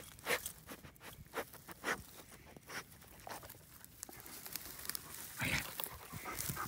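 Tall dry grass crunching and rustling as the walker and a large dog push through it, a string of irregular crackles, with a louder rustle about five and a half seconds in.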